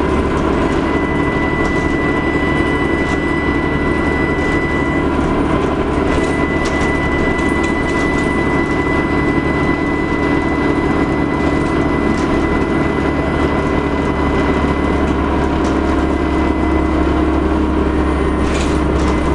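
Dennis Trident double-decker bus under way, its diesel engine running with a steady drone and its turbocharger whistling as a constant high tone above it. A few light rattles near the end.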